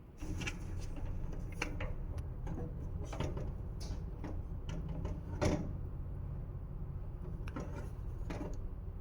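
Irregular clicks and knocks, about seven of them, the loudest about five and a half seconds in, over a steady low hum.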